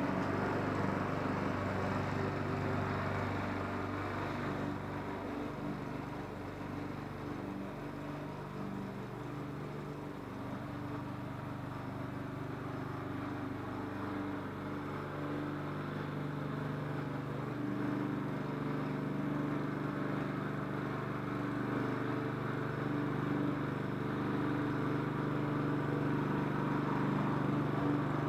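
Radio-controlled lawn mower's engine running steadily, fading a little partway through and growing louder again towards the end.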